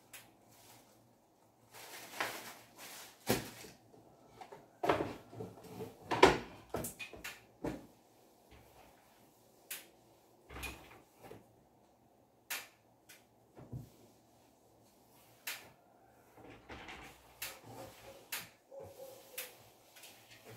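Scattered knocks, bumps and rustling as things are handled and shifted on the shelves of a wooden wardrobe. The knocks are thickest and loudest in the first third, then come singly, with softer rustling near the end.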